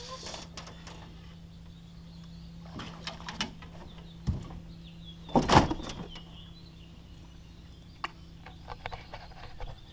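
Knocks and clatter from handling a flathead catfish in an aluminium jon boat as it is taken off a trotline, with one loud thump about halfway through. A steady low hum runs underneath.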